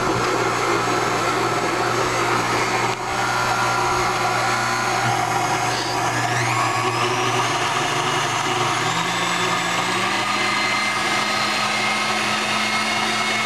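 KitchenAid Artisan stand mixer running, its wire whisk beating egg whites. The motor's steady hum rises in pitch about halfway through as the speed is turned up.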